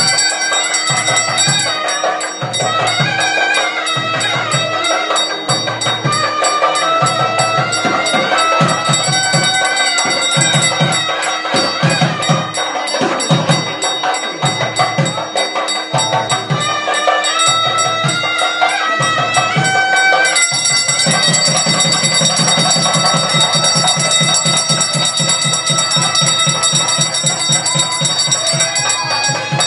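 Traditional Hindu temple ritual music: a drum beating steadily with bells ringing and a melody line above, the drumming switching to a fast continuous roll about two-thirds of the way through.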